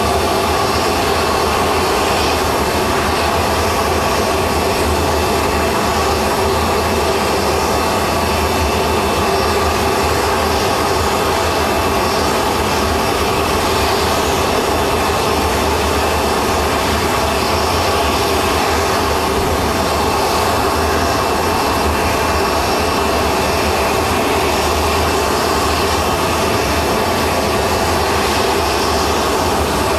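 A jet turbine running steadily and loud, a constant rush of noise with a thin high whine over it.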